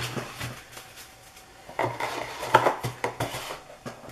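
Stiff embossed trading cards being handled and flipped through. Card clicks and scrapes against card and against a cardboard box come in a quick cluster in the second half.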